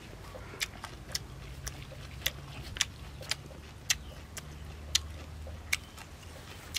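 A person chewing a crunchy mouthful of salad with peanuts and raw vegetables, about two short sharp crunches a second, with a faint low hum underneath.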